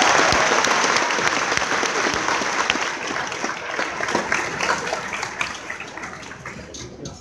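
A large audience applauding, the clapping gradually dying down.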